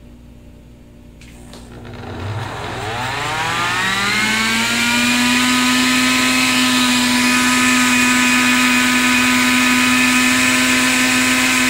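Electric jug blender motor starting up again after about two seconds of quiet while blending a smoothie. Its whine rises in pitch over roughly three seconds to full speed, then runs steadily.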